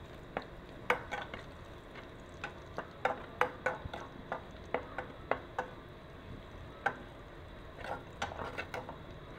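Metal ladle stirring chopped aromatics in oil in a metal pan, scraping and clinking against the pan bottom in irregular bursts of sharp clicks, with a short lull in the middle.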